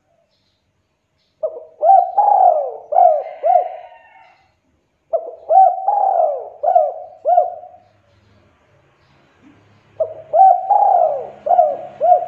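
Spotted dove singing its cooing song: three phrases of four or five coos each, a few seconds apart, the third starting near the end.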